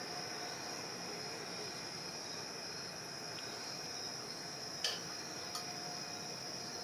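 Steady low hiss with a faint high whine, a background that is there the whole time. One sharp tap comes about five seconds in, and a softer click half a second later.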